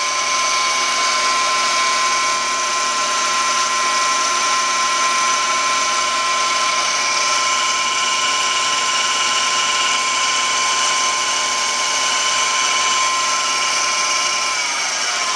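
Homebuilt 2x72 belt grinder running unloaded, its belt going over a hollow-grinding contact wheel made from an industrial cart wheel on a water pump bearing: a steady whine over belt hiss. Near the end the whine starts to fall in pitch as the machine winds down.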